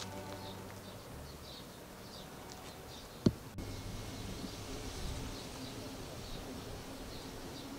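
Outdoor garden ambience: small birds chirping faintly and intermittently over a low steady hum, with one sharp click a little past three seconds in.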